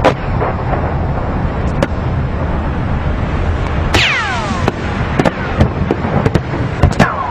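Irregular sharp cracks and pops over a steady low rumble, with a descending whistle about four seconds in and another near the end.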